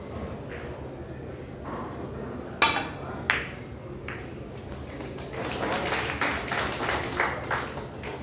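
Carom billiard balls clicking: a sharp crack about two and a half seconds in and a second click under a second later, then a run of lighter, quicker clicks toward the end, over a hall murmur of voices.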